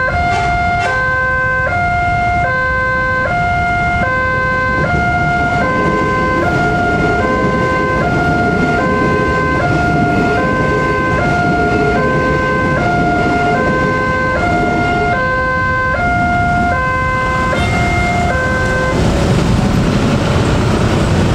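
Railway level-crossing warning alarm sounding a repeating two-tone electronic chime, high and low notes alternating about once a second, over the rumble of a passing train. The alarm cuts off about 19 seconds in and road traffic noise rises.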